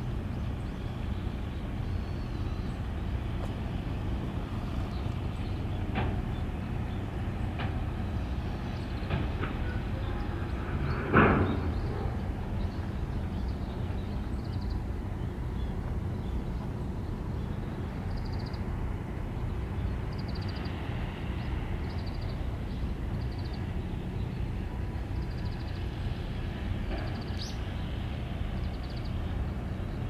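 Steady low rumble of wind and water at the seafront, with one short thump about eleven seconds in and a few faint clicks before it.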